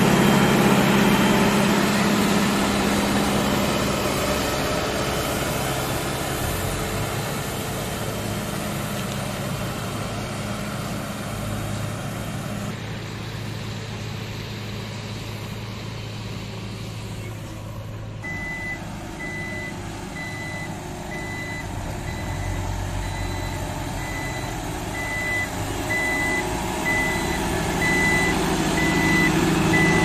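Construction machine engines running, loudest at the start and again near the end, with a Roadmaster G90 grader in view. From a little past the middle, a reversing alarm beeps steadily, a little more than once a second.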